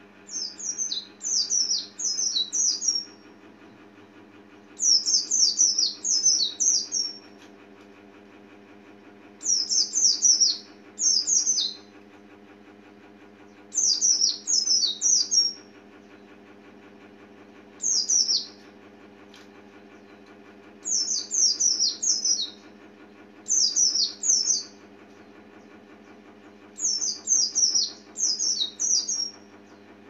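Oriental white-eye singing: eight short phrases of quick, high, falling notes, each one to three seconds long, coming every few seconds.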